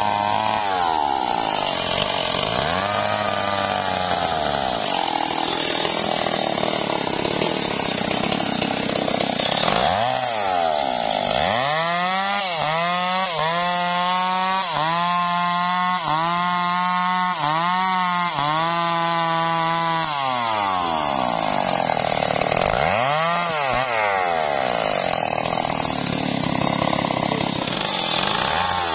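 Stihl MS 381 two-stroke chainsaw cutting through a felled teak log, the engine running at high revs under load. For several seconds in the middle the engine pitch rises and falls about once a second, then it settles back into a steady cut.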